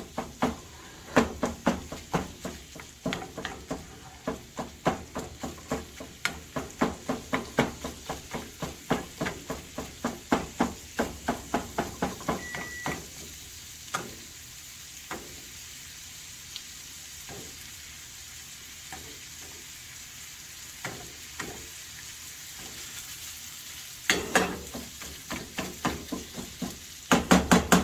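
A spatula chopping and breaking up 80% lean ground beef in a frying pan, with a fast run of knocks against the pan, about two or three a second, while the meat sizzles. The knocking thins to a few strokes about halfway through, leaving mostly the sizzle, then picks up again near the end.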